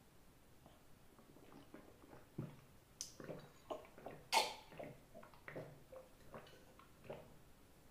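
A person drinking water from a glass: a run of faint gulps and swallows starting about two seconds in, with one sharper, louder sound near the middle.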